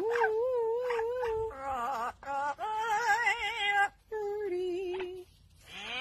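Amazon parrot singing in a human-like voice: long wavering held notes and stepped melodic phrases, broken by short pauses and a brief silence about five seconds in.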